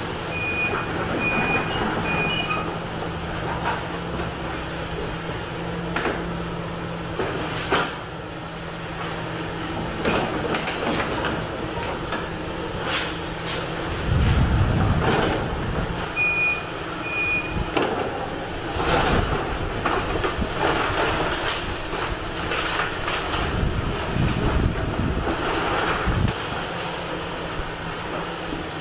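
Excavator engine running as it demolishes a house, with repeated cracks, knocks and heavy crashing rumbles of walls and debris breaking and falling. A backup alarm beeps briefly near the start and again just past halfway.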